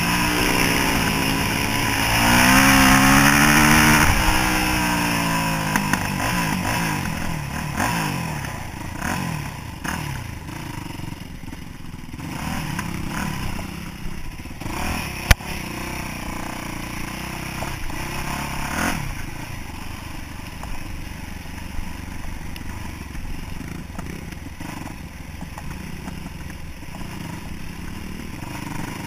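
Yamaha YZ426F's four-stroke single-cylinder engine being ridden off-road. It revs hard with the pitch sweeping up and down for the first few seconds, then runs at lower revs with short throttle blips. A single sharp knock comes about halfway through.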